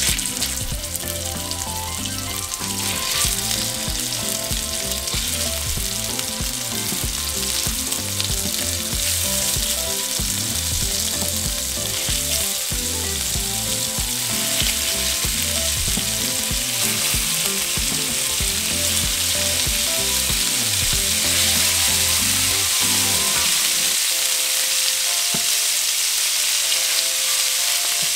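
Chunks of seasoned pork shoulder sizzling in hot vegetable oil in a cast-iron skillet as they are laid in one by one with tongs to sear. The sizzle grows steadily louder as the pan fills.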